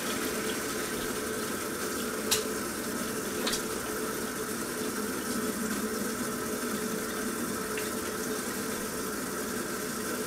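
A spoon stirring a wet, thick bean mixture in a crock pot, with two sharp knocks of the spoon against the pot a couple of seconds apart, over a steady background hum.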